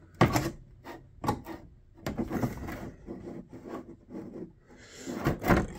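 A plexiglass sheet being handled and set down into the wooden recess of a shadow-box lid: a few knocks and scrapes of plastic against wood, the loudest cluster near the end.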